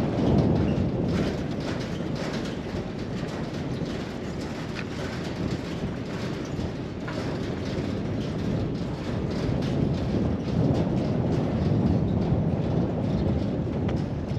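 Strong wind buffeting the microphone: a steady low rumble that surges and eases, with crackling gusts throughout.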